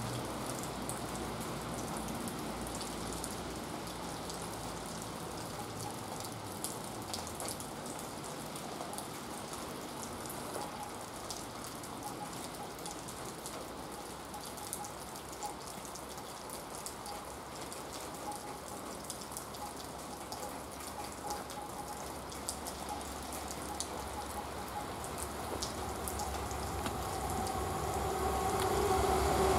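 Steady rain falling with scattered drips and patters. Over the last several seconds the low rumble of an approaching Class 59 diesel locomotive hauling a loaded stone train grows steadily louder.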